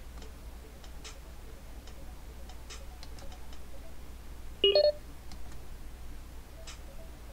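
Faint clicks of the buttons on a Mpow H20 wireless headphone's ear cup being pressed, and about four and a half seconds in a short, loud two-note electronic beep from the headphone.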